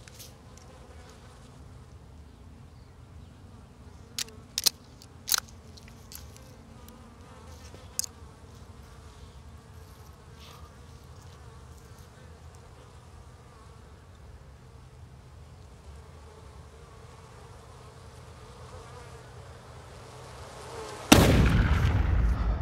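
Faint steady buzzing of insects with a few sharp clicks, then a single loud rifle shot near the end that rings on and fades over a couple of seconds.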